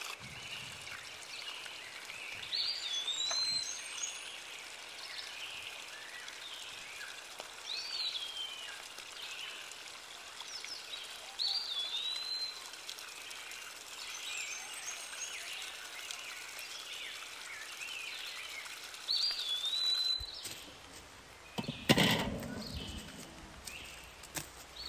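A small stream trickling and splashing over rocks, with a bird repeating a short whistled call, rising then falling, four times. Near the end the water sound drops away and there is a single sharp knock.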